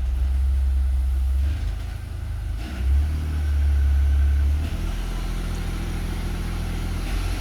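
2011 Ford F-150's 3.5 L EcoBoost twin-turbo V6 revved up briefly twice while in reverse under load, then settling back to a steady idle; the engine is being loaded to try to bring out a cylinder 2 misfire (code P0302).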